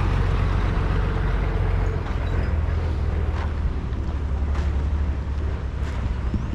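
Vehicle engine running with a steady low rumble that eases slightly about two seconds in, with a few light knocks.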